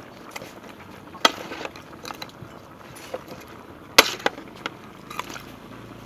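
A utensil knocking against a stainless steel cooking pot while jackfruit chunks and pork leg are stirred: a sharp clink about a second in, a louder one about four seconds in, then a few lighter taps.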